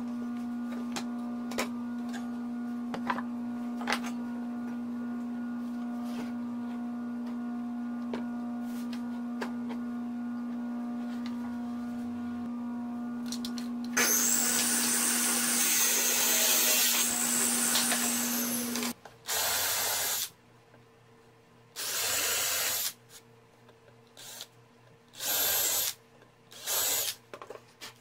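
Table saw running with a steady hum and a few light knocks of wood blocks being handled. About 14 s in, the blade cuts through a small pine block for about five seconds. The saw then stops, and an 18 V cordless drill runs in four short bursts.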